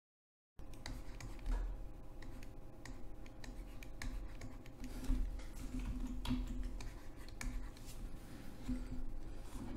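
Stylus tapping and scratching on a tablet while handwriting, faint irregular small clicks over a low steady hum. It begins after about half a second of dead silence.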